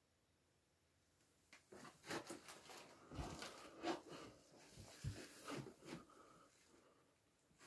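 Irregular rustling and soft bumps of a phone being moved and handled while filming, starting about a second and a half in after near silence.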